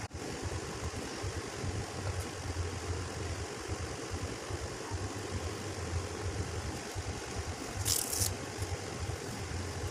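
A steady low hum with a hiss over it, and a brief high hiss about eight seconds in.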